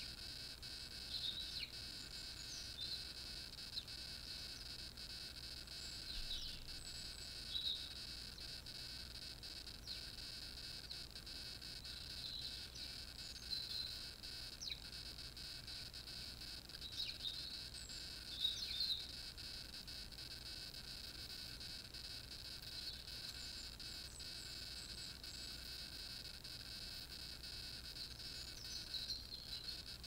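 Small garden birds giving short chirps and calls in scattered little clusters, the loudest just past halfway, over a steady high-pitched hiss.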